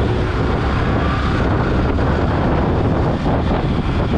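Wind noise buffeting the microphone on a moving Yamaha sport motorcycle, with the bike's engine running underneath.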